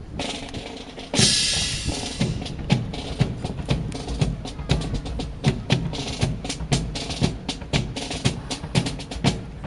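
Rifle drill by an honor guard: a dense, irregular run of sharp wooden clacks and low thumps, several a second, with a loud hissing crash about a second in lasting about a second.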